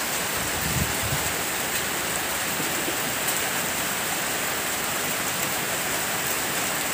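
Heavy rain pouring steadily, heard from under a corrugated metal roof.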